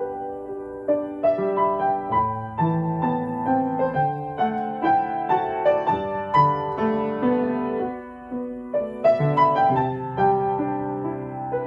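Solo piano playing a slow, gentle new-age piece: a melody over held chords, with a slightly softer passage about eight seconds in.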